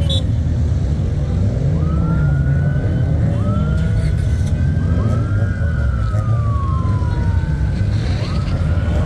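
A siren wailing, its pitch rising and holding several times, with one long fall in the middle, over a steady low engine rumble.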